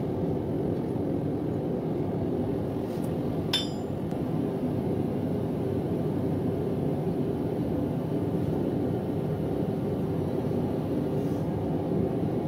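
Propane forge burner running with a steady low rushing sound. About three and a half seconds in comes a single ringing metal clink.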